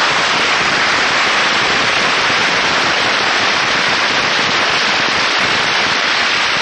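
A large batch of bottle rockets going off all at once: a loud, dense, steady crackling hiss with no separate bangs standing out.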